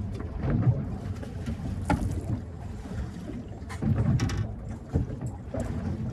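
Wind on a phone microphone and the low rumble of a small boat on the water, with several sharp knocks and bumps of handling on deck.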